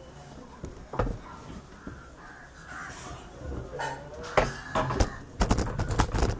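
Crows cawing, harsh calls repeating through the first half, followed from about four seconds in by a run of sharp knocks and clicks from handling the PC case and camera.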